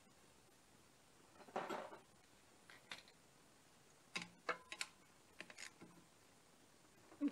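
Faint scattered metallic clicks and taps of a hand ratchet with a socket extension being handled and fitted on the motorcycle engine's cover, with a brief rustle about one and a half seconds in and a cluster of clicks past the middle.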